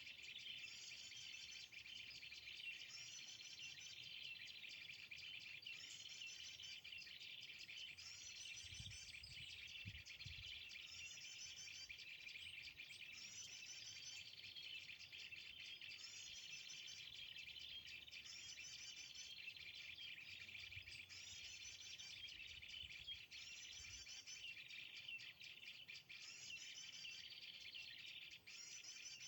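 A small songbird's call: one short high phrase repeated at even intervals, about every second and a half, over a faint steady chorus of insects.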